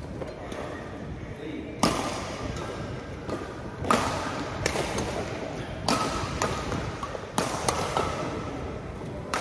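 Badminton rackets striking the shuttlecock in a rally: about eight sharp hits at irregular intervals, each ringing briefly in the large hall.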